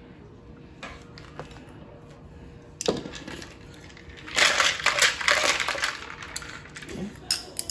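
A sharp knock about three seconds in, then about a second and a half of crunching, as a knife cuts a slice from a fresh pineapple.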